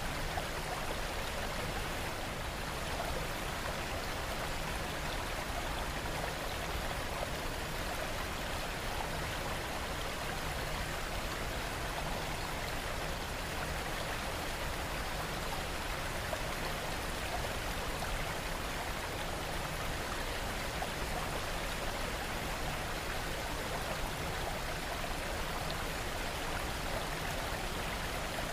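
Steady rain: an even, unbroken hiss of falling water with no change in level.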